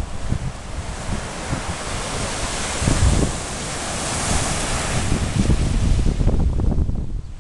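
Sea surf: a wave breaks and washes up the shore, its hiss swelling to a peak about four seconds in and dying away near the end. Wind buffets the microphone with a low rumble throughout.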